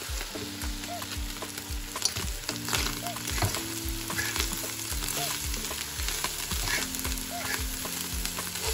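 Dried lotia fish (Bombay duck) sizzling as it fries in oil, stirred with a fork, with small clicks from the stirring. Under it runs Afrobeat background music with a steady beat.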